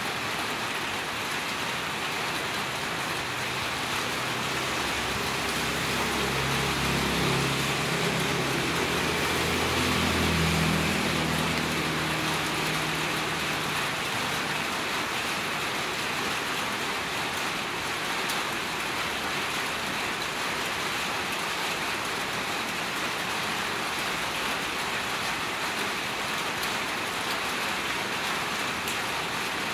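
Steady rain falling on a wet street. A motor vehicle passes during the rain, its low engine hum rising from about four seconds in, loudest around ten seconds, and fading out by about fourteen seconds.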